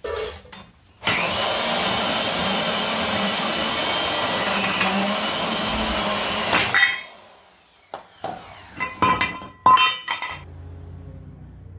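Angle grinder running against steel channel, starting about a second in and winding down after about six seconds. Then a quick run of sharp metallic clanks as the cut steel pieces are handled, and a faint low hum near the end.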